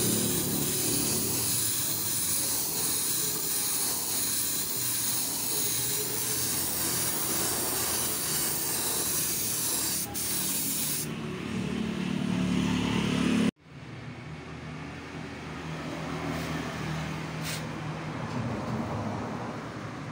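Paint spray gun hissing steadily as it sprays paint. The hiss stops about eleven seconds in, and after a sudden break a quieter, steady low rumble carries on.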